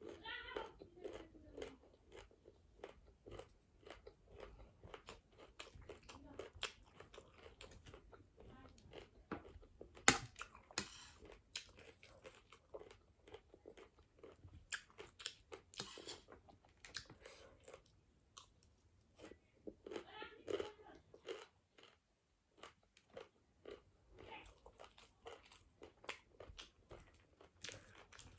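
Close chewing and crunching of chatpate, a spicy puffed-rice snack: many irregular crisp crunches, with one sharp, louder crunch about ten seconds in.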